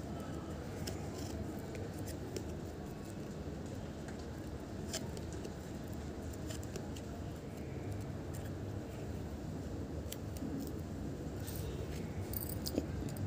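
Quiet room tone with scattered faint clicks and taps from a toddler handling and turning the thick cardboard pages of a board book.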